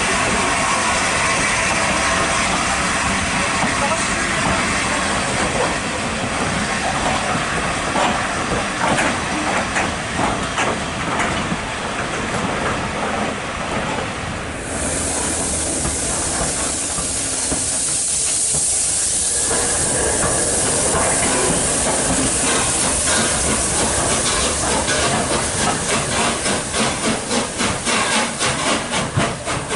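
Three-cylinder steam locomotive, LNER Peppercorn A1 60163 Tornado, working with a steady rush of steam and noise. About halfway a strong high hiss of escaping steam sets in, and in the last third a rapid, even rhythm of beats grows louder.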